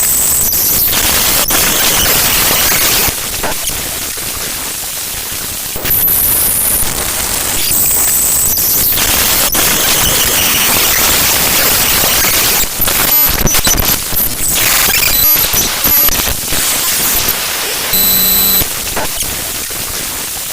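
The raw bytes of the Adobe AIR.dll library file played as audio: harsh hiss and static that changes texture every few seconds, with a short buzzy steady tone near the end.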